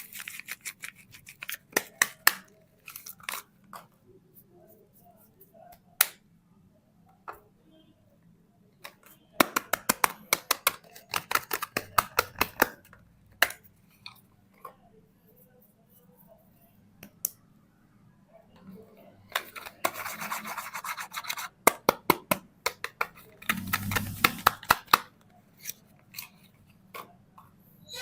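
Soap bars being unwrapped and opened by hand: scattered sharp clicks and ticks, with three runs of rapid crinkly crackling from the packaging, about a third of the way in, two-thirds of the way in, and again shortly after.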